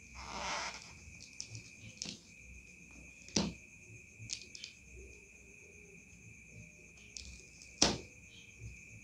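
Kitchen knife cutting and scraping through the plastic wrap of a parcel: a short scraping rush at the start, then a few sharp clicks and scrapes, the loudest about eight seconds in. A steady high-pitched chirring of crickets goes on behind it.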